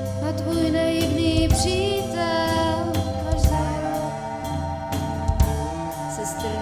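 Band music: held organ-like chords over a steady drum-kit beat, with a wavering sung or lead melody line about a second in.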